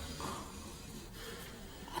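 Faint breathing of a man asleep, with a snore starting right at the end.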